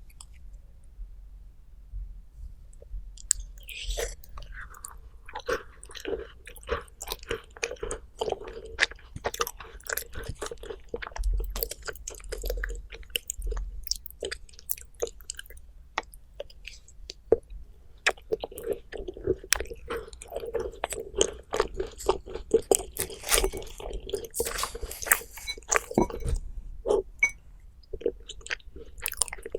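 Close-miked chewing and crunching of dessert: a dense run of crisp crunches and bites that starts about three seconds in.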